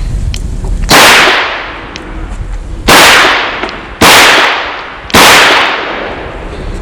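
Four loud shots from a Chiappa Rhino 40DS revolver firing .38 Special, the first alone and the other three coming a second or two apart, each trailing off in a long echo.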